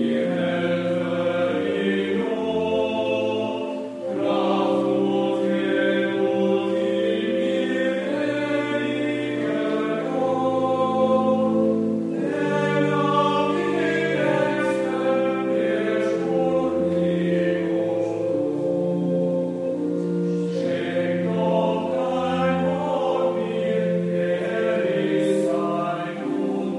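Youth choir singing a slow piece in several-part harmony, holding sustained chords that change every second or two, with a short break about four seconds in.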